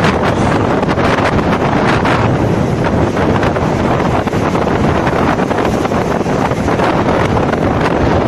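Wind buffeting the microphone in a steady loud rush with frequent short gusts, over the wash of sea waves.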